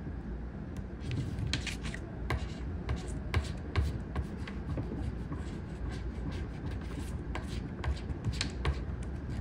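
A coin scratching the silver coating off a paper scratch-off lottery ticket: short, irregular scrapes, one or two a second.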